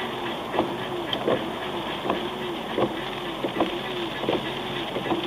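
Rhythmic metallic noise from a VW Scirocco R's wheel and brake, croaking like a frog. Each repeat is a click followed by a short rising-and-falling squeal, coming about every three-quarters of a second. The owner takes it for a stone caught in the brake caliper.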